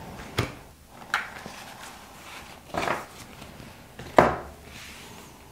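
Mucha tarot cards being swept up from a fanned spread and handled, with a few soft slides and slaps of the cards; the loudest comes about four seconds in.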